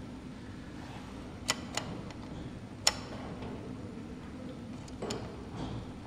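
A handful of sharp, isolated clicks, the loudest about three seconds in, over a low steady hum.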